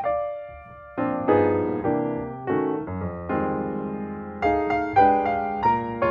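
Background piano music: a gentle melody of single notes over chords, with a short pause about half a second in before the playing resumes.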